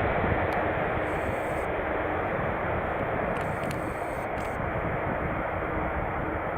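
Boeing 747-400's four jet engines running, heard as a steady rushing noise with a faint low hum that slowly fades.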